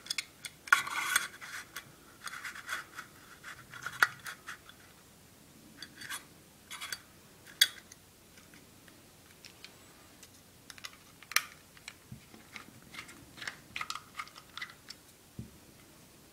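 A small screwdriver scraping and clicking against screws and the metal housing of a dismantled IKEA timer during reassembly: irregular light scrapes and sharp ticks, with a few louder clicks spread through.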